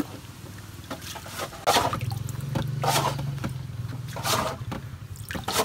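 Water splashing and sloshing in several short splashes about a second apart, as the fish catch is handled in the boat.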